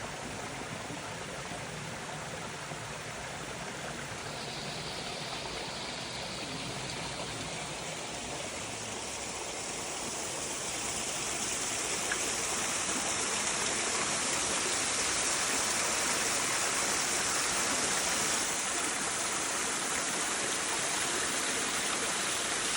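Waterfall's water rushing steadily, growing louder and more hissing about halfway through.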